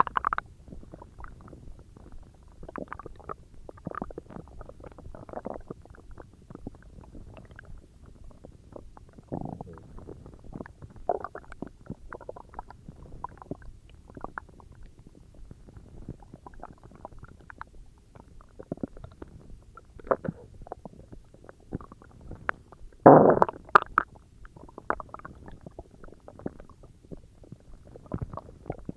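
Human stomach growling and gurgling in irregular short bursts, the loudest about three quarters of the way through.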